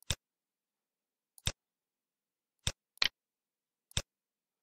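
Five sharp computer mouse clicks, irregularly spaced, two of them in quick succession about three seconds in.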